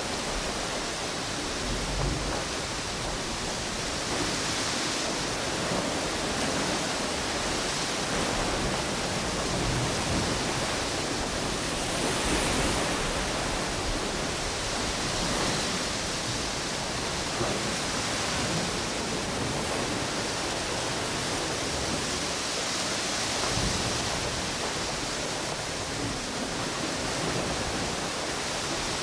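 Ocean waves washing onto a beach mixed with wind through palm trees: a continuous rushing noise that swells and eases every few seconds.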